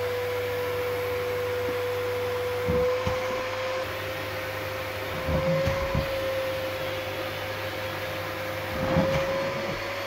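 Vacuum cleaner running with a steady high whine that wavers slightly in pitch, with a few brief louder moments (about 3, 5 to 6 and 9 seconds in) as the hose nozzle sucks up thongs.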